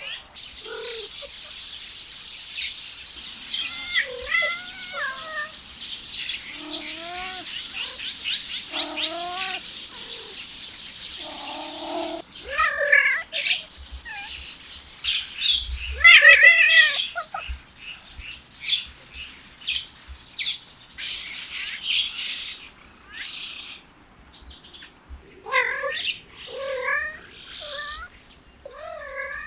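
Stray cats meowing again and again: drawn-out calls that rise and fall in pitch, the loudest about halfway through. A high, steady chirring runs behind them for the first part.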